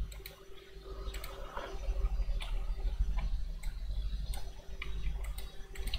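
Scattered, irregularly spaced clicks of a computer mouse and keyboard over a faint steady hum.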